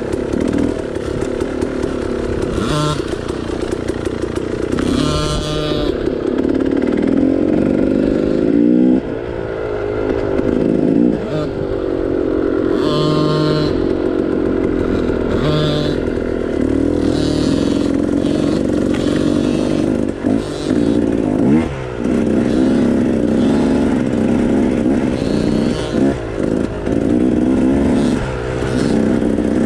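KTM 300 XC two-stroke single-cylinder dirt bike engine running at low trail speed, its revs rising and falling over and over with the throttle.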